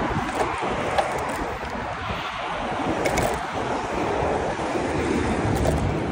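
Wind rushing over the microphone of a handlebar-mounted camera on a road bike moving at speed, with steady road noise underneath.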